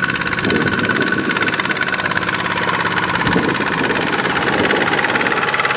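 Kubota single-cylinder diesel tractor engine running steadily with a rapid, even chugging.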